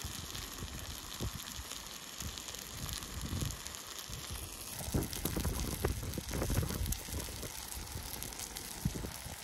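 Steak and sausages sizzling in a camping frying pan over a small gas canister stove, a steady hiss with a few crackles. Wind buffets the microphone in uneven gusts, strongest about halfway through.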